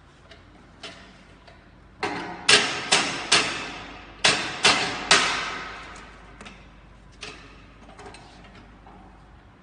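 Metal knocks and clacks from a manual screen printing press as the metal screen frame is handled and set in the press's screen clamp. A few light clicks come first, then about seven loud knocks in quick succession in the middle, the last one ringing on briefly, then lighter clicks again.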